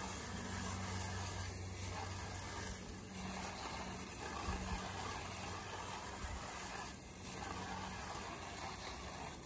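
Handheld sprayer nozzle hissing as it sprays a fine mist of rust-remover chemical, over a faint steady low hum.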